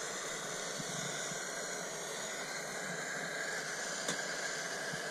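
Backpacking camp stove burner running with a steady hiss under a pot. A single small clink about four seconds in.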